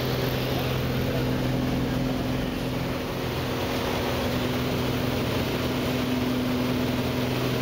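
Steady drone of a Cessna 185 Skywagon floatplane's six-cylinder piston engine and propeller in level flight, heard inside the cabin, holding a constant low pitch.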